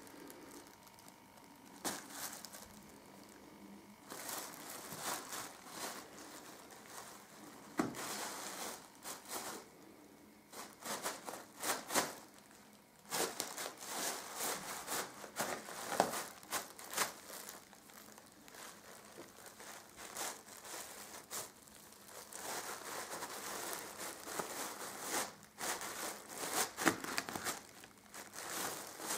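Plastic bags and wrappers in a suitcase crinkling and rustling in irregular bursts as they are pushed about.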